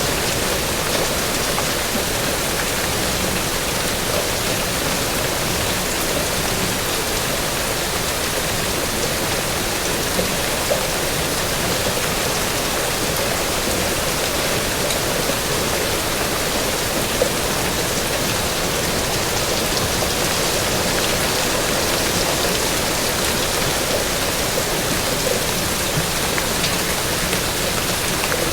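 Steady rain falling, an even hiss with a few louder drops tapping now and then.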